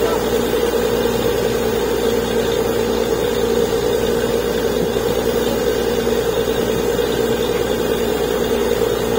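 Truck-mounted borewell drilling rig running steadily, a constant loud engine drone with no change in pitch.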